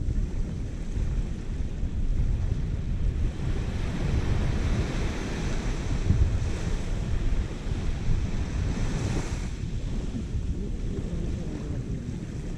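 Wind buffeting the microphone with small waves washing on the beach; a wash swells from about three seconds in and falls away near ten seconds.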